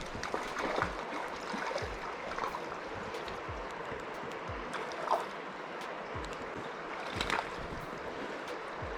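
River water flowing steadily, with scattered faint clicks and low knocks over it.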